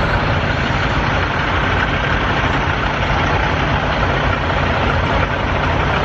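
Semi-truck diesel engines idling close by, a steady low running mixed with a dense, even rush of wind in a snowstorm.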